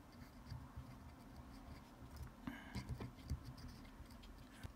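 Faint scratchy rubbing of an alcohol-dampened cotton swab scrubbed over a small circuit board, cleaning off water-based solder flux, with a few soft clicks near the middle.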